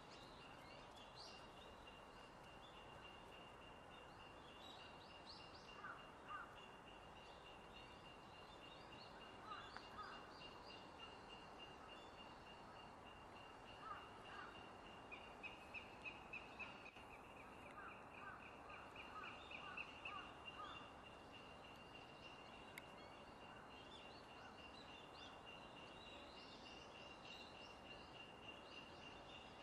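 Faint outdoor ambience: a steady, high, rapidly pulsing trill throughout, with short bursts of bird calls now and then, the longest a quick run of calls around the middle.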